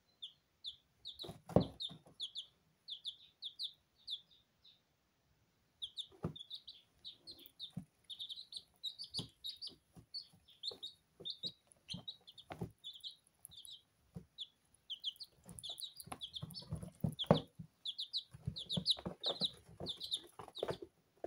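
Baby bantam chicks and an Indian Runner duckling peeping: a long run of short, high peeps, several a second, with a brief pause about five seconds in. Scattered knocks and rustles come from the hand holding them.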